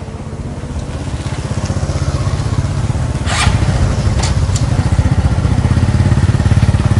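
An engine, likely a small one such as a motorcycle's, runs with an even, rapid pulse and grows steadily louder. A few sharp clicks come about three and four seconds in.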